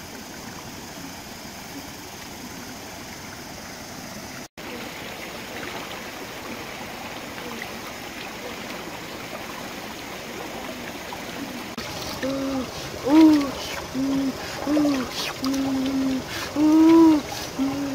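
Stream water running over rocks. About two-thirds of the way in, a series of about eight short hooting calls starts, each with a steady, slightly arched pitch, and these become the loudest sound.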